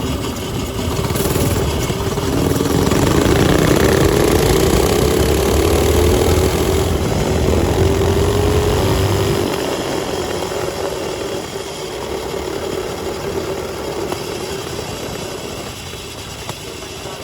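Mini bike's small engine running, its pitch climbing about two seconds in as it speeds up, then holding steady and loud before fading after about nine seconds.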